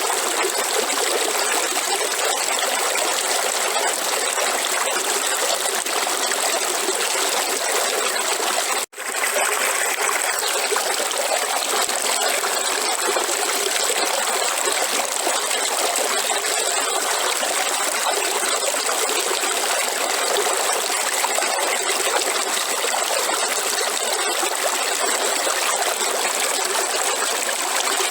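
River water flowing and trickling steadily. The sound drops out for an instant about nine seconds in.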